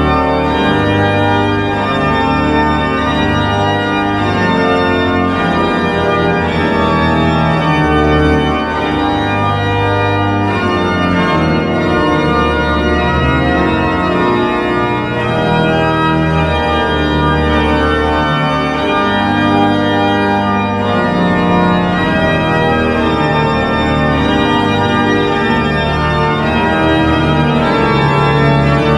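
Large pipe organ played with a full, loud registration: sustained chords on the manuals over low bass notes on the pedals.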